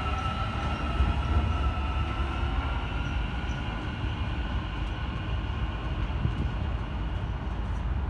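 Electric metro train pulling away from the platform: a high traction-motor whine in several pitches that rises as it gets going and then slowly fades as the train moves off, over a steady low rumble.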